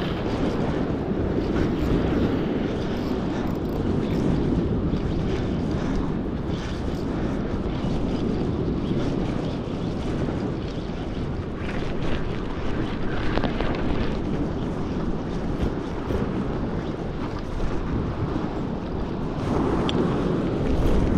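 Wind buffeting the microphone, a steady low rumble, with the sea's wash behind it.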